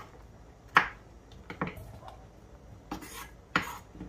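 Okra being cut on a cutting board: about five sharp, irregular knocks of the blade against the board, the loudest about a second in and near the end.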